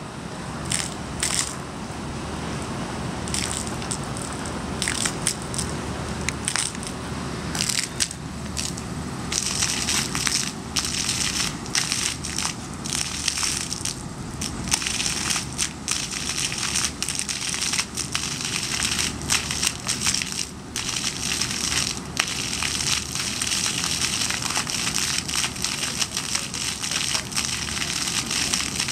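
Water and trapped air spitting out of the open end of a geothermal loop flush hose and splashing onto pavement, a steady rush broken by many irregular pops as air pockets are purged from the loop. The hiss grows stronger about nine seconds in.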